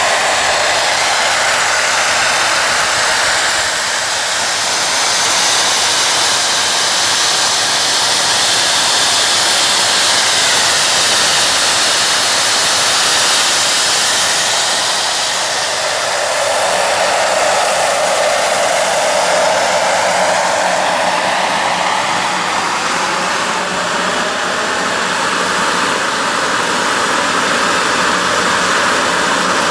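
Homemade turbocharger-based turbojet engine running continuously, a loud jet roar with a high turbine whine. Its tone shifts around the middle, with the whine gliding up and down.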